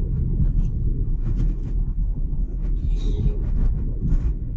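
Car driving on a city road, heard from inside the cabin: a steady low rumble of engine and tyres, with faint irregular clicks.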